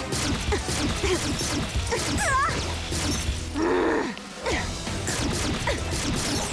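Fast action music from an animated cartoon's soundtrack, laid over a run of sharp hit and crash effects. A short wavering sound effect comes just after two seconds, and a louder noisy burst about three and a half seconds in.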